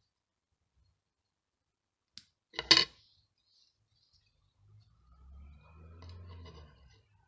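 Hands working close to the microphone: a sharp double click about two and a half seconds in, then a low rubbing rumble with light rustling near the end.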